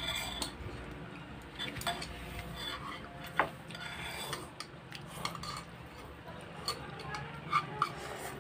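Chopsticks and a spoon clinking and tapping against ceramic bowls as noodles are lifted and eaten: a scatter of light clicks, with the sharpest clink about a third of the way in and a few more near the end.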